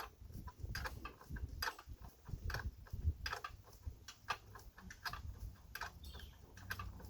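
Irregular light metallic clicks and taps, about two or three a second, as a wrench is worked on a bell housing bolt that is threading in easily.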